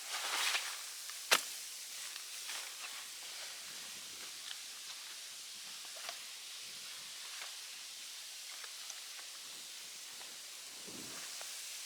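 Brief rustling, then one sharp snap or click about a second and a half in, followed by scattered faint ticks and rustles over a steady hiss of outdoor ambience.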